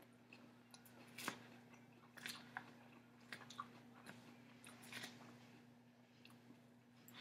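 A man chewing a mouthful of salad, faint, with a few scattered small crunches and clicks; the sharpest comes about a second in.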